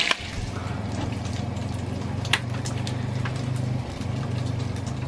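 A small engine running steadily with a low hum, with a few sharp clicks from knee braces being strapped on, the loudest about two seconds in.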